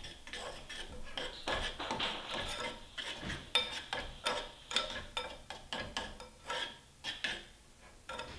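A utensil stirring couscous in a small saucepan, scraping and clinking against the pan in irregular strokes.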